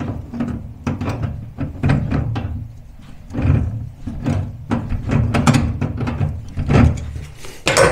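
Irregular clicks, knocks and scraping from hands and a tool working at the back of a gas cooker to cut off its gas hose, with a sharper stroke near the end.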